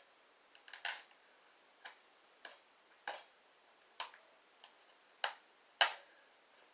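Sharp plastic clicks and taps from a DVD case and its packaging being handled and picked at while it is opened. There are about nine at irregular intervals, and the loudest two come near the end.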